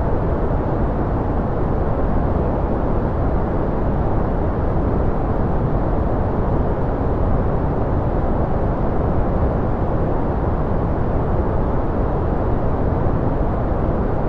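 Steady, unchanging noise of a white-noise track, deep-toned and muffled, with most of its weight in the low and middle pitches and little treble.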